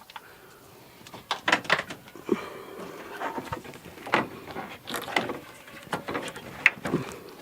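Irregular clicks and knocks of hands and a tool working at the plastic headlight and trim fastenings of a car.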